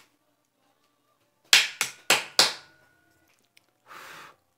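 Close-miked slurping of jajangmyeon noodles: four sharp, loud slurps in quick succession about a second and a half in, then a softer half-second slurp near the end as another mouthful goes in.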